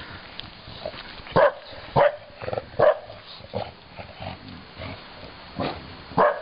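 English bulldog barking at sheep: short, separate barks, four in quick succession over the first few seconds and two more near the end.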